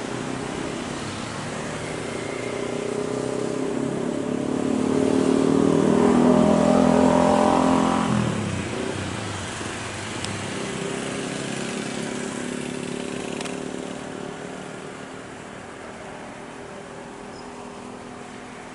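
A road vehicle passes close by over a steady background of traffic noise. Its engine grows louder, peaks about six to eight seconds in, then drops in pitch as it goes past and fades.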